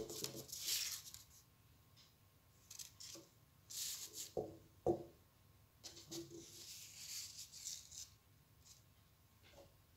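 A sheet of paper being folded and creased by hand into a star: several spells of crisp rustling and crinkling, with two sharp knocks on the tabletop between four and five seconds in.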